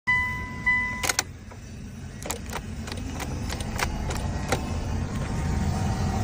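A steady electronic beep for about the first second, then a run of irregular sharp metallic clicks over a low rumble that slowly grows louder: work on a car that will not crank, being readied for a direct start.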